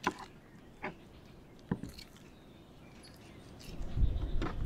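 Fillet knife tapping and cutting against a plastic cutting board while the pin-bone strip is cut out of a grouper fillet: three short sharp clicks a little under a second apart. A low rumble starts near the end.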